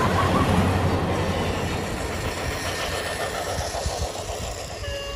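Electric toy trains running along plastic track, a steady mechanical running noise that gradually grows quieter.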